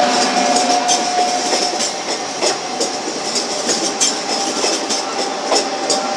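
Electric multiple unit passing close by at low speed: wheels clattering over rail joints with irregular sharp clicks, over a steady whine.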